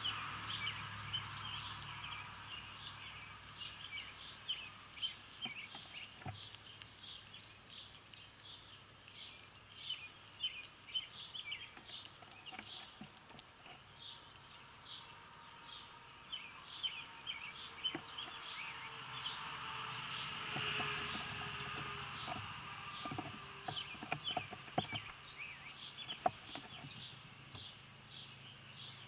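Small birds chirping over and over, short high chirps about twice a second, over a faint low hum. A few sharp clicks come in the second half.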